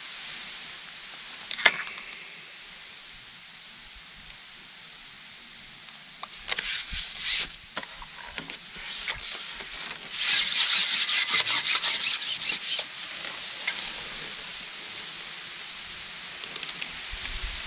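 Carbon fishing pole sections being handled and slid against each other, rubbing and rasping. There is a sharp click early on, a few rasps a little before halfway, then a louder run of quick, even rasping strokes, about four or five a second, lasting under three seconds.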